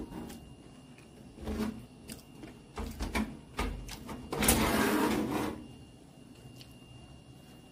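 Several light knocks and clicks, then a louder scraping noise lasting about a second just past the middle.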